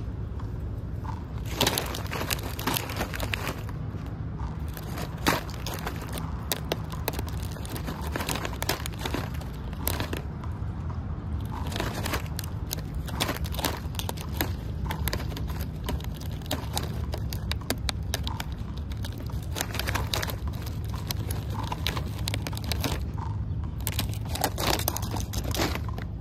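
Irregular crackling clicks of in-shell peanuts knocking together and rattling in a thin plastic tray as a squirrel grabs at them and tips the tray, over a steady low hum.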